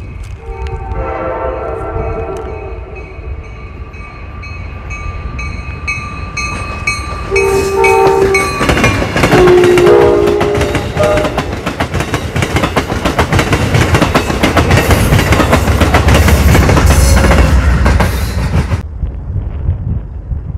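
Amtrak passenger train sounding its horn in several blasts as it approaches, then passing close by with wheels clicking over the rail joints and a heavy rumble. The sound cuts off abruptly a couple of seconds before the end, leaving faint wind.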